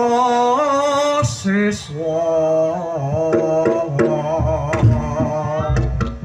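A voice singing a slow Javanese melody in long, wavering held notes as Reog Ponorogo accompaniment begins; about four and a half seconds in, deep drum beats and sharp percussion strokes join in.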